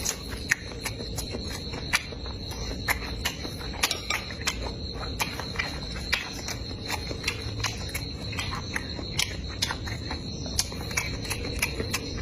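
Close-miked chewing: irregular wet mouth clicks and smacks, a few each second, over a faint steady high tone.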